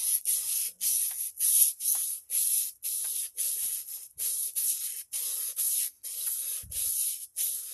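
A blade being rubbed back and forth along sandpaper under fairly firm pressure, in even rasping strokes about two a second, while heavy scratch marks are ground off during sharpening.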